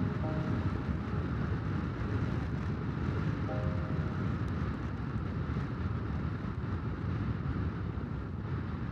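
Steady wind rush and buffeting on the microphone of a motorcycle moving at speed, with the bike's running and road noise underneath as one continuous rumble.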